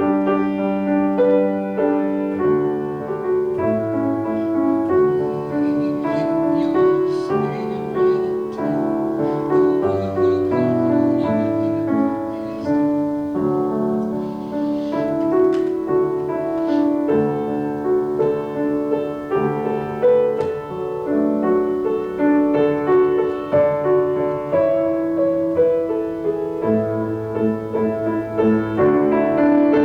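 Solo piano playing a slow, gentle instrumental, with sustained chords over a bass line.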